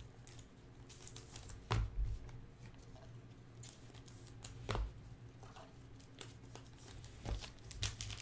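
Hands sorting through a stack of baseball cards: soft slides and light taps of card stock, with a few sharper clicks, about two seconds in, near five seconds and past seven seconds, over a faint low hum.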